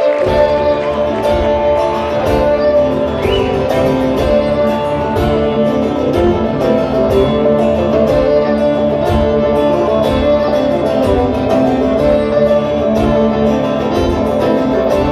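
Live acoustic string-band music begins abruptly and plays on with strummed and plucked guitar and fiddle over a steady beat.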